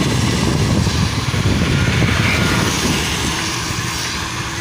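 Wind buffeting the microphone while riding along a road: a loud, fluttering low rumble that eases slightly near the end.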